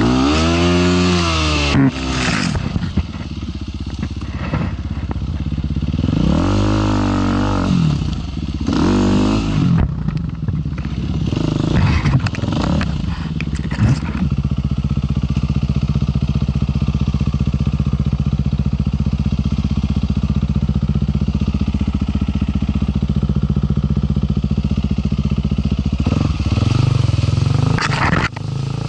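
KTM 350 EXC-F's single-cylinder four-stroke engine on a forest trail, revving up and down in short bursts, with a few sharp knocks. Later it holds a steady note for a long stretch before revving up again near the end.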